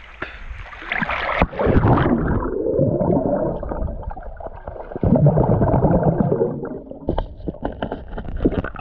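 Splashing, then river water heard through a submerged camera from about two seconds in: a muffled gurgling wash with the high end cut off. Sharper splashy clicks return near the end.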